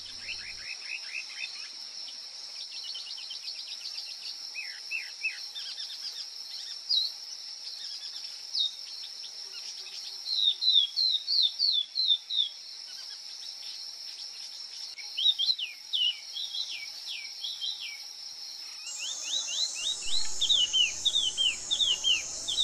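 A small songbird calling in repeated groups of quick, high, down-slurred chirps over the steady high drone of insects. Near the end a second, higher wavering insect drone joins in.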